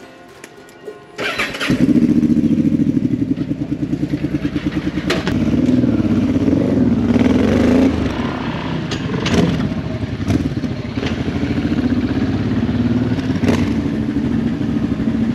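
Honda Transalp 700's V-twin engine, fitted with an aftermarket exhaust header, starts about a second in. It then runs with a few rises in revs as the motorcycle pulls away and rides on.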